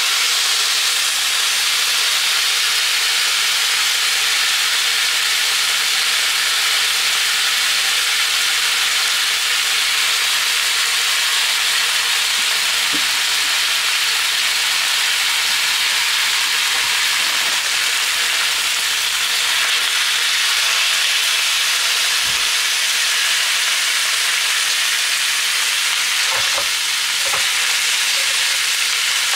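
Sliced meat and batter sizzling steadily on an electric hot plate, a loud even hiss, with a few light clicks in the last several seconds.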